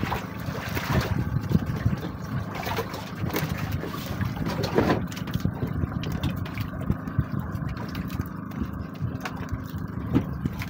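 Engine of a motorized outrigger boat running steadily while underway.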